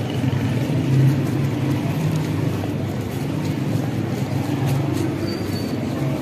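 Steady city street noise: a continuous low rumble of road traffic with the general hum of a busy street.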